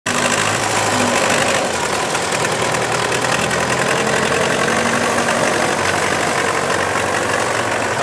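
Tractor diesel engine running steadily with an even, fast beat while it pulls a moldboard plough through sandy soil.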